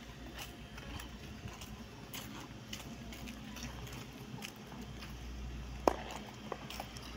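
Faint footsteps on a concrete lot, irregular light scuffs and taps, with one sharp click about six seconds in.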